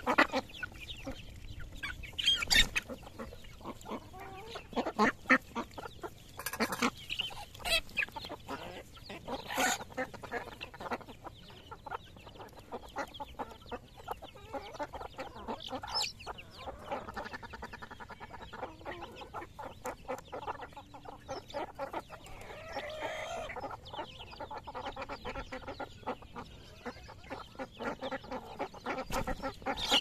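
Flock of desi chickens clucking with scattered short calls while foraging at close range, ducks feeding among them.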